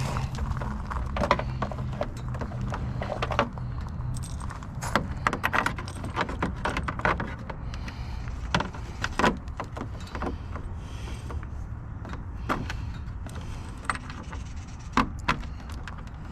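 Irregular clicks, knocks and light metallic rattles of tools and parts being handled, over a steady low hum.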